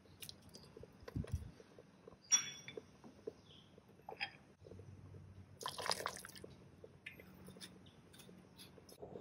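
Small kitchen sounds around a pot of water with pork ribs: light scattered clicks and drips, a sharp ringing clink a couple of seconds in, and a short splashy rustle about six seconds in, over a faint low hum.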